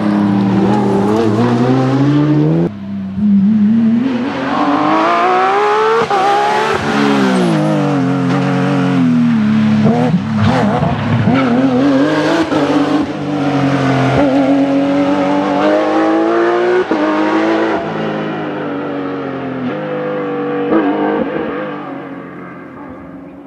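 Porsche 911 GT3 rally car's flat-six engine driven hard, its pitch climbing through the revs and dropping repeatedly as it changes gear and lifts off. It fades away near the end as the car drives off.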